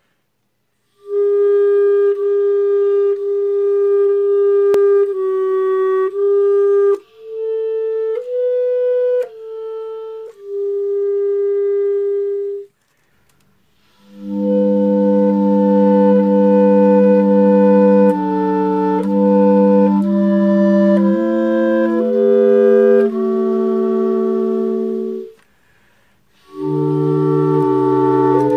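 A hymn played on clarinets. A single clarinet plays the melody alone; after a short break about 13 seconds in, three clarinets play it together in harmony. After another brief pause near the end, a bass clarinet joins with low notes under them.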